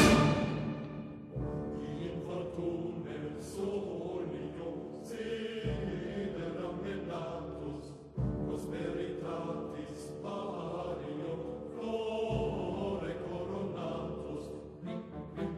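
Background music: orchestral with choral voices, quieter after a loud passage fades away at the start.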